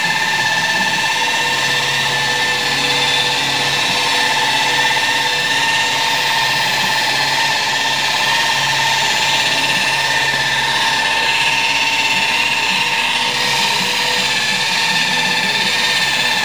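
Electric rotary polisher with a wool buffing pad running steadily while it polishes the metal side of a flatbed tow truck, a constant motor whine.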